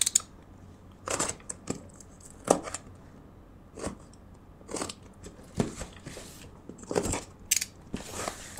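Box cutter slitting the packing tape on a cardboard parcel: a series of short, irregular scratching and crackling strokes of blade, tape and cardboard, with the box flaps rustling as they are opened near the end.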